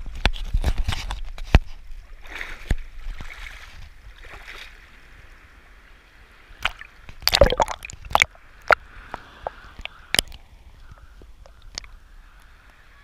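Seawater sloshing and splashing against a waterproof action camera held at the surface, with sharp clicks and splashes as small waves hit the housing. The splashing is heaviest in the first second or two and again around the middle, and quieter in between.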